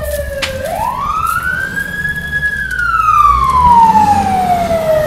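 Fire engine siren wailing: a slow rise, a long fall, and the start of another rise near the end, over a low engine rumble.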